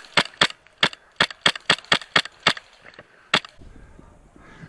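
Airsoft gun firing about eleven single shots in quick, uneven succession, the last one after a short pause.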